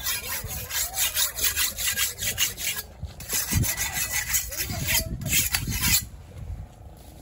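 A large curved steel fish-cutting knife being sharpened on a flat sharpening stone, its blade scraped back and forth across the stone in quick, rasping strokes. The strokes break off briefly twice and stop about six seconds in.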